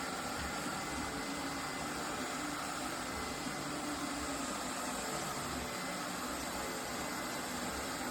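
Lefant M330 Pro robot vacuum running with a steady, even whirring hum.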